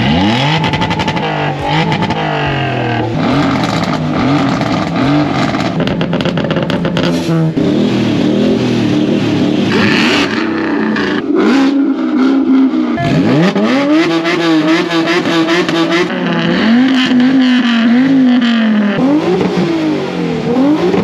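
Turbocharged performance car engine revved hard again and again, the revs swinging up and down and held at a steady high pitch for a second or two at a time on a two-step rev limiter, with rapid popping and crackling from the exhaust.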